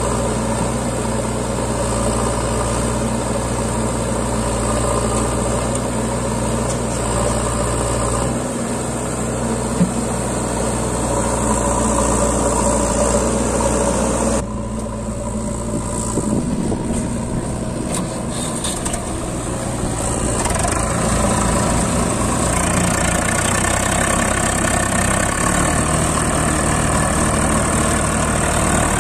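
Diesel engine of a Swaraj 744 FE tractor idling steadily. The sound drops suddenly about halfway through and picks up again a few seconds later.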